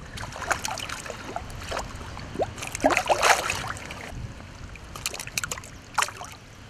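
Shallow river water sloshing and splashing around a hand held under the surface, releasing a fish, with small irregular splashes and a louder one about three seconds in.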